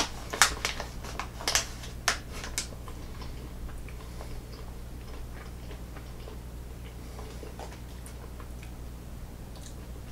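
Plastic jerky package crinkling and clicking as it is handled: several sharp crackles in the first few seconds, then only faint ticks over a steady low hum.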